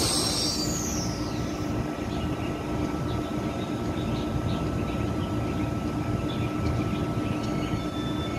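A Taiwan Railways EMU3000 electric multiple unit coming to a halt at a platform. A last high brake squeal falls in pitch and fades in the first second or so. After that the standing train hums steadily over a low rumble.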